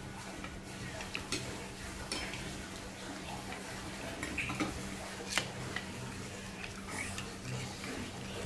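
Metal spoon stirring a runny flour batter in a ceramic bowl, with irregular clinks and scrapes of the spoon against the bowl.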